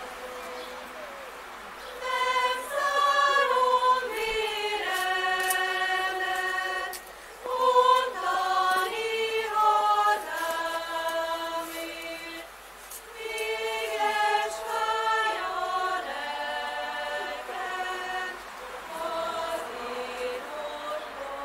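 Women's choir singing a Hungarian folk-song arrangement in several parts, holding sustained notes phrase by phrase. It starts softly and swells fuller about two seconds in, with short breaks between phrases.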